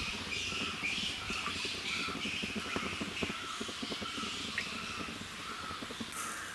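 Sesame oil poured in a stream from a plastic bottle into an iron kadai, a low irregular trickle and gurgle, while birds chirp over and over in the background.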